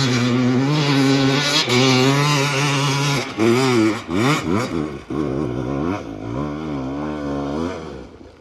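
Motorbike engine revving, its pitch rising and falling again and again as the throttle is worked, dropping away just before the end.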